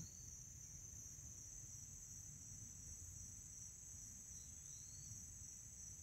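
Faint steady chorus of crickets, an unbroken high-pitched trill, with a faint short chirp about four and a half seconds in.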